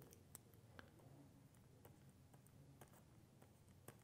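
Near silence with faint, irregular ticks of a stylus tapping on a pen tablet during handwriting, over a low room hum.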